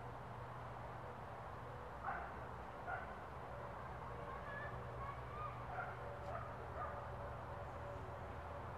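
Six or seven short animal calls or yelps, scattered from about two to seven seconds in, over a steady low hum.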